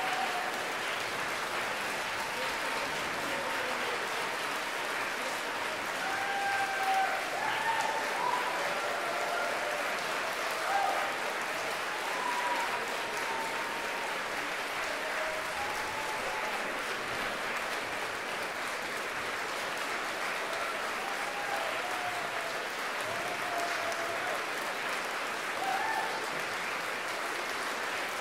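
Concert audience applauding steadily for the whole stretch, the clapping dense and unbroken.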